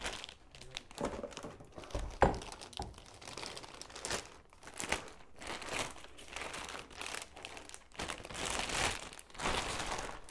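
Clear plastic packaging crinkling and rustling as a new suspension fork is lifted and unwrapped from its bag over a cardboard box, in irregular handfuls, with one sharper knock about two seconds in.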